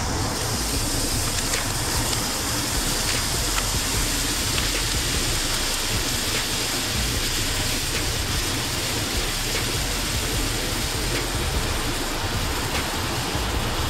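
Raw bacon strips sizzling on a hot Blackstone flat-top griddle: a steady hiss with scattered small pops, over a steady low rumble.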